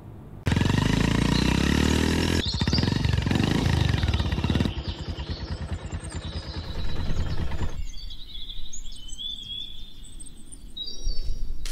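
Motorcycle engine running and revving, its pitch rising over the first couple of seconds, then running unevenly and dying away after about eight seconds. Birds chirp near the end.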